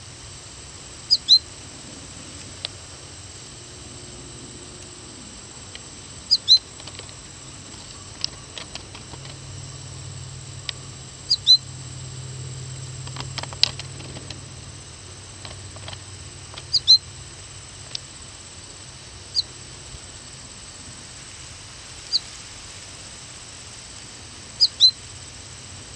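Fledgling American goldfinch calling: short, high-pitched notes that slide downward, given seven times every few seconds, mostly as quick pairs of notes.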